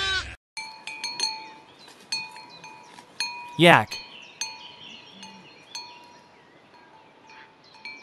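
A sheep's bleat ends right at the start. Then a metal bell clanks irregularly, a few strikes a second at first and thinning out later, with small birds chirping faintly in the second half.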